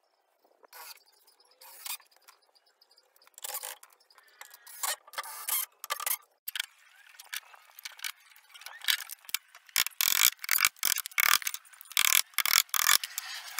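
Cordless drill driving a screw into a wooden block, with clicks and short mechanical bursts. Then, in the last few seconds, a rapid series of loud claw-hammer blows on the pallet-wood frame.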